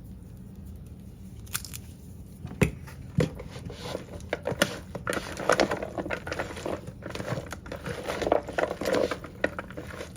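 Pasta salad being stirred and tossed in a bowl: sharp knocks and clicks of the utensil against the bowl with crinkly, wet rustling of the ingredients, starting after a quiet second or so and getting busier.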